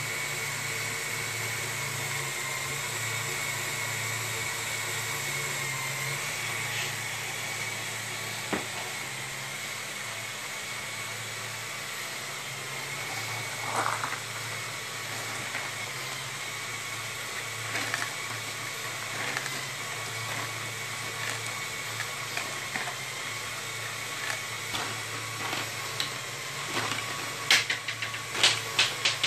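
Lego Technic electric motors driving the conveyors and mechanisms of a Lego Great Ball Contraption: a steady whine and hum of motors and gearing, with scattered plastic clicks and clacks, and a quick run of sharper clicks near the end.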